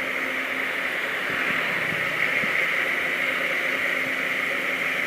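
A steady hiss with a faint, even engine hum underneath: a Kubota DC60 combine harvester running while it harvests rice.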